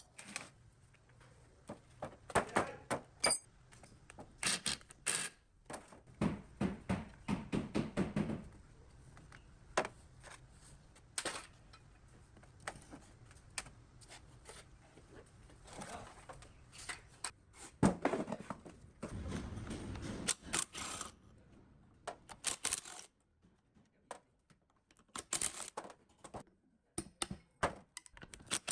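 Hand tools and metal parts of an old water pump clinking and knocking in separate sharp taps, a few with a brief metallic ring, with two stretches of quick rattling.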